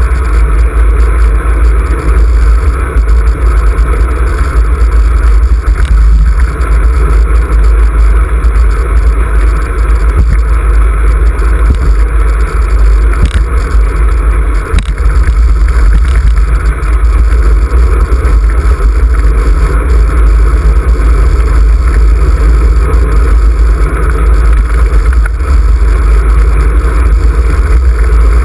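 Loud, steady wind rush buffeting the microphone of a camera mounted on a moving road bike, mostly a deep rumble.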